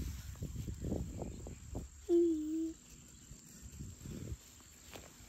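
Soft irregular scuffling and rustling in dry fallen leaves as puppies move about. About two seconds in there is a brief steady hummed voice sound, like a short 'mm', held at one pitch for about half a second.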